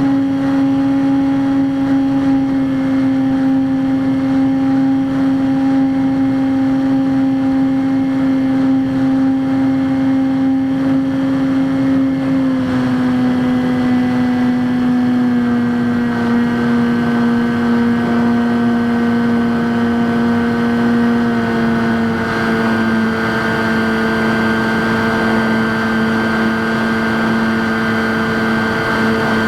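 Electric motor and propeller of a Skywalker X5 flying wing running steadily under power: a constant droning hum that drops a little in pitch twice.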